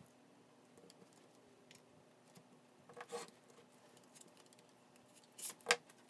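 X-Acto craft knife cutting through sticker paper by hand: two short, faint rasping strokes about 3 and 5.5 seconds in, with light taps of the paper between them.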